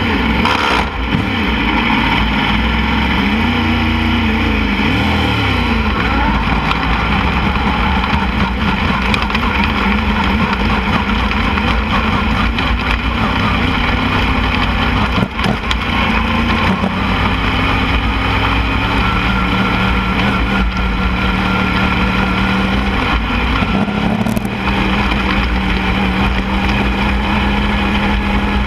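Lightning sprint race car engines running hard in a heat race, their pitch rising and falling with the throttle, then holding a steadier high note in the second half.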